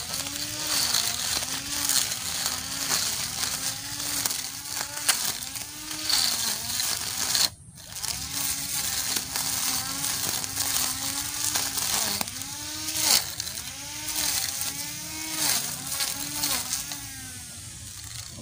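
Cordless electric grass trimmer with a metal cutting blade running while being swept through grass. Its motor whine swells up and sags in repeated arches about once a second, over a dense ticking of cut grass. It cuts out for a moment about seven seconds in.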